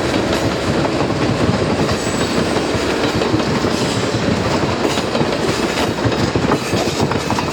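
A train's railroad cars rolling past, wheels clicking and clattering over the rail joints over a steady rumble.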